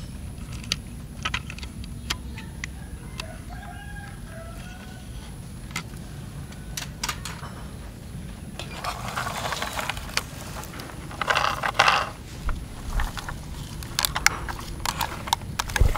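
Plastic toy fire trucks handled by hand on grass: scattered light plastic clicks and knocks, with two short spells of grass rustling about nine and eleven seconds in as a truck is set down and another picked up.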